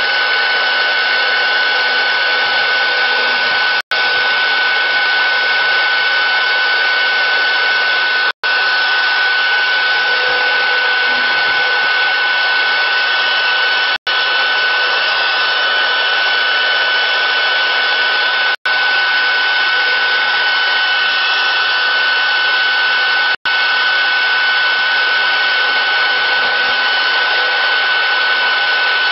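CNC router spindle running steadily with a constant high whine as its bit mills a slot in a wooden board. The sound cuts out for an instant about every four to five seconds.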